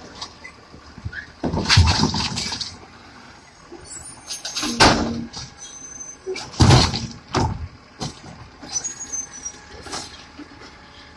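Automated side-loader garbage truck's mechanical arm emptying wheeled trash carts: several loud bangs and clatters as the carts are tipped and shaken against the hopper, with brief high squeals, over the truck's running engine.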